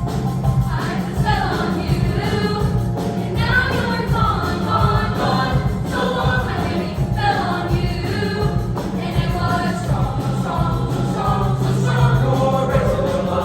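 Junior high girls' choir singing, with instrumental accompaniment carrying a steady low bass underneath.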